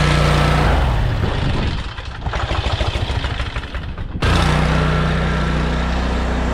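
Gas-engine pressure washer running steadily under the hiss of its water spray, in two clips cut together. The engine's hum drops back from about a second in while a rougher spray sound takes over, and it returns after a cut about four seconds in.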